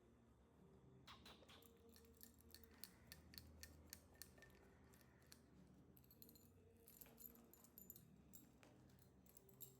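Near silence: faint room tone with many small, scattered light clicks and ticks.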